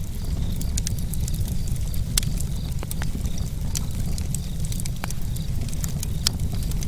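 Campfire burning: scattered sharp crackles and pops of burning wood over a steady low rumble.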